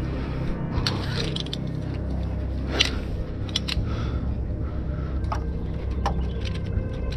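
Scattered light metallic clinks and clicks, about a dozen, irregularly spaced and sharpest just under three seconds in, over a steady low rumble.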